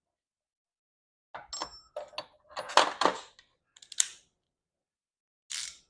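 Metal sockets clinking and rattling in an irregular clatter as they are handled while the right size socket is picked out. A short scraping rustle follows near the end.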